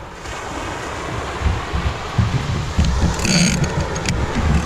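Heavy saltwater fishing reel ratcheting, its drag just tightened while a shark is on the line, over an uneven low rumble.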